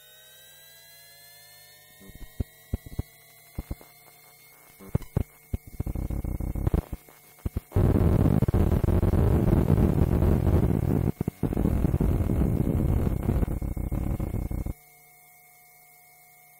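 Sound effects for the opening titles. Rising electronic tones over a steady hum give way to sputtering crackles, which build into a loud wall of noisy static. The static cuts off suddenly near the end, leaving only the hum.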